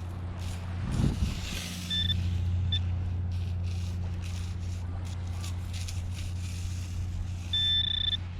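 Handheld metal-detecting pinpointer beeping as it is swept over a buried target: two short high beeps, then a longer beep near the end. A steady low hum runs underneath, with a thump about a second in.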